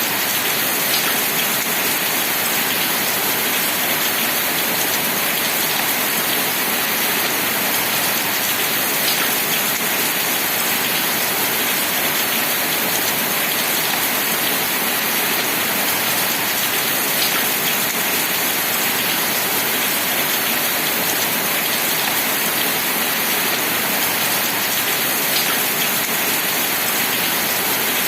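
Steady rain, a dense even hiss with the odd single drop standing out now and then.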